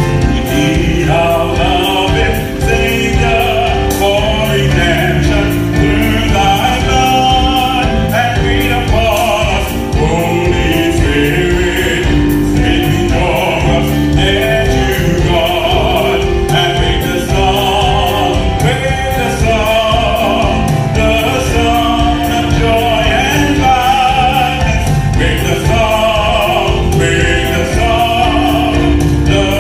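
A man singing a gospel song into a handheld microphone, his voice wavering with vibrato, over instrumental accompaniment with a steady beat.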